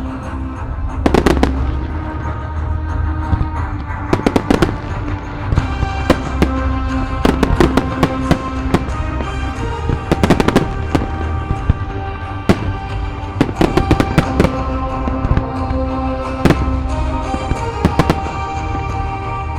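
Aerial firework shells and salutes bursting in a display, with sharp reports coming singly and in quick clusters throughout. Musical accompaniment plays steadily underneath.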